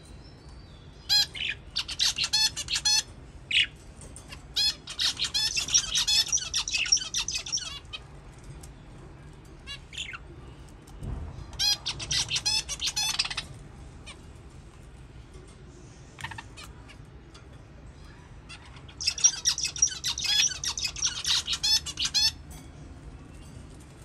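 Young budgerigars chattering in several bouts of rapid, high chirps and squawks, with short quiet gaps between.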